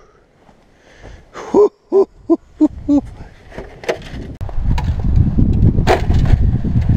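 A man's voice in five short, quick pitched syllables, then rustling and crunching handling noise with a few light clicks as a shot-up sheet-metal box is picked up and handled.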